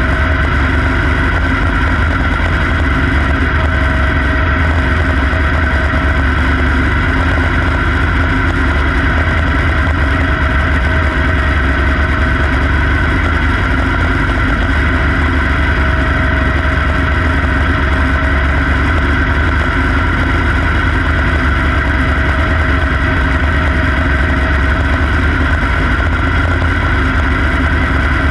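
Quarter midget race car's small single-cylinder engine running steadily at racing speed, heard from on board the car, with little change in pitch through the laps.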